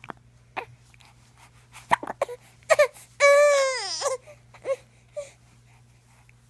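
Baby hiccuping with short, sharp catches of breath, then one long, loud cry about three seconds in that falls in pitch, followed by a few more short hiccups.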